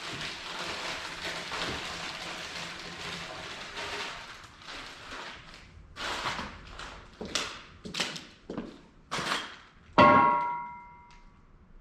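Metal sawmill parts being handled. A stretch of scraping and shuffling is followed by a run of sharp knocks and clanks, and near the end one loud metal clang rings on for about a second.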